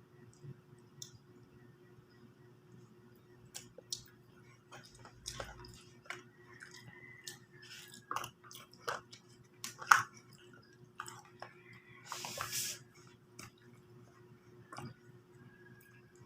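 Eating sounds: chewing and utensils clicking and clinking against a plate, the loudest clink about ten seconds in, with a short rustle around twelve seconds, over a steady low hum.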